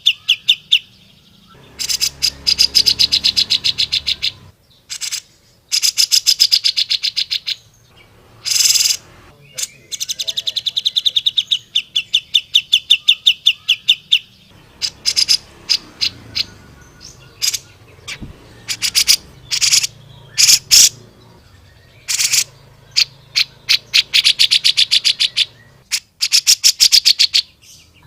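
Grey-cheeked bulbul (cucak jenggot) calling loudly in rapid rattling trills of sharp repeated notes, several bouts of two to four seconds each, with scattered single notes between them. This is the energetic 'gacor' singing used as a training recording for cage birds.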